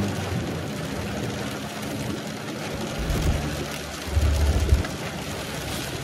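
Tofaş car engine heard from inside the cabin: the revs drop sharply at the start as the driver eases off with a hand on the gear lever. After that it runs at low revs, with short louder low surges about three seconds in and again about four seconds in.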